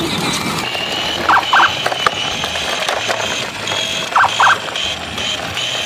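Small electric kick scooter riding along: a steady high-pitched motor whine, with two pairs of quick clacks about three seconds apart as the wheels roll over the pavement joints.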